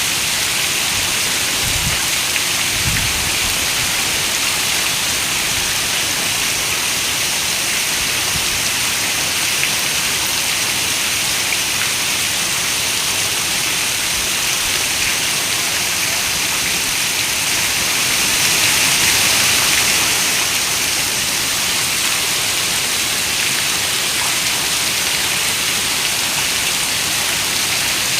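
Steady heavy rain, a dense even hiss that swells a little louder for a couple of seconds about two-thirds of the way through. Two short, low thuds come about two and three seconds in.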